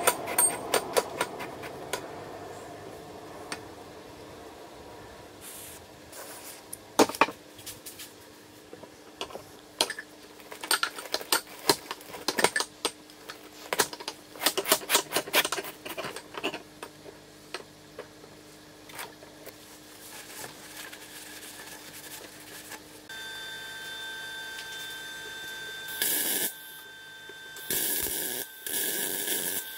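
Clicks and knocks of steel tubes being handled and fitted through a car tyre. Later a steady hum comes on, and near the end come several loud bursts of MIG welding crackle, a few seconds each.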